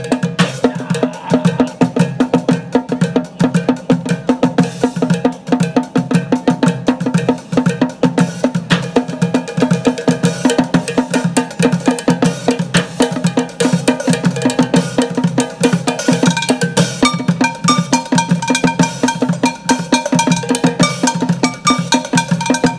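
Street bucket drumming: drumsticks beat a fast, unbroken rhythm on upturned plastic water-cooler bottles and plastic buckets. Metal cooking pots are struck alongside, and higher ringing notes stand out in the second half.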